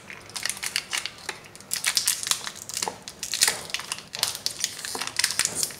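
Foil-lined cream carton and plastic wrap crinkling and crackling in irregular bursts as they are peeled off a frozen kulfi bar.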